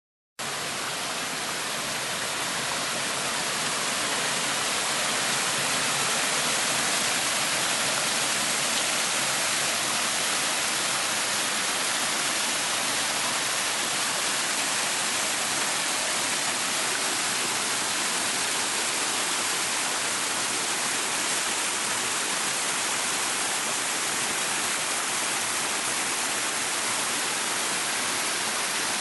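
Shallow river water rushing over flat bedrock and cascading into a round hole in the riverbed: a steady, hissing rush that cuts in abruptly just after the start and holds unchanged.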